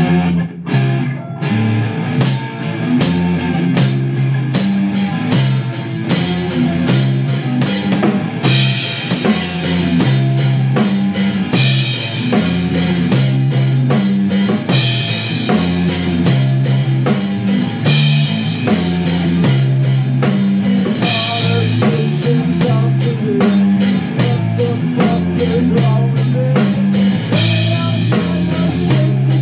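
Live rock band playing a steady driving riff on drum kit, electric bass and electric guitar, with no vocals. The drums start with spaced hits and fill out into a full beat with cymbal crashes from about eight seconds in.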